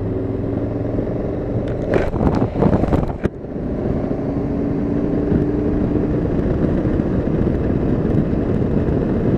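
KTM 1290 Super Adventure's V-twin engine running steadily at road speed, with wind and road rush heard from the rider's seat. About two seconds in, a second or so of louder rough bursts, then a brief dip in level just after three seconds.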